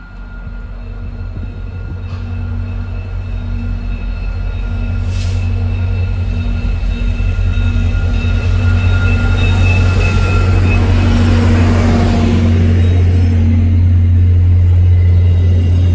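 VIA Rail F40PH diesel locomotive approaching and running past, its engine drone growing steadily louder. It is followed by the rumble of the passenger coaches rolling by on the rails.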